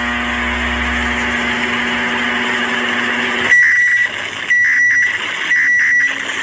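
Emergency alert system alarm tones: a steady buzzing tone that cuts off about three and a half seconds in, then a high-pitched beep repeating about once a second.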